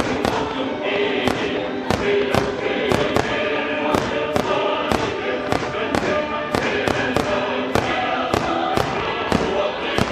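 Aerial firework shells bursting in quick, irregular succession, about two sharp bangs a second, over music with choral singing.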